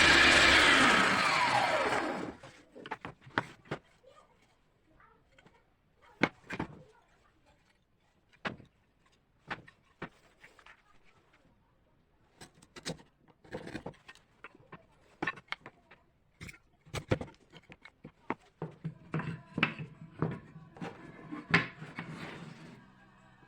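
A power tool spins down and stops in the first two seconds, its pitch falling, followed by scattered sharp knocks and clicks from wood and tools being handled on the bench.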